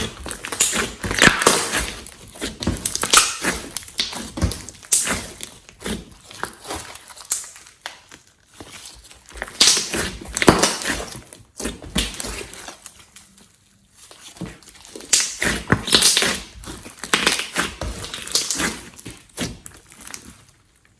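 Slime being squished and kneaded by hand, with bursts of wet, sticky clicks and pops, easing off briefly about eight seconds in and again around fourteen seconds.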